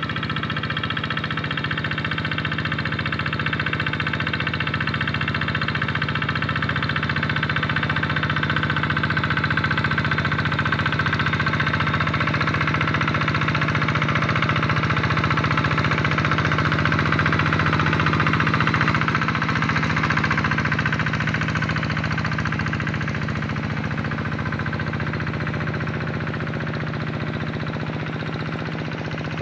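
Tractor engine running steadily while plowing a flooded rice paddy, with a droning, whining tone. It grows louder to a peak a little past the middle, then eases off.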